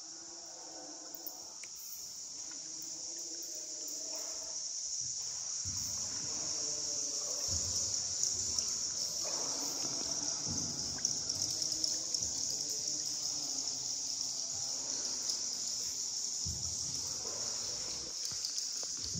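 Steady high-pitched chorus of insects, with a lower rushing, watery noise beneath that grows louder about six seconds in.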